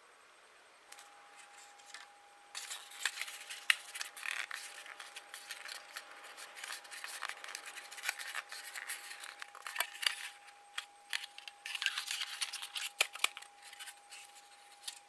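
Thin clear plastic candy mould crinkling and clicking under the fingers as soft chocolate candy dough is pressed into it, a dense run of quick irregular crackles that starts a couple of seconds in.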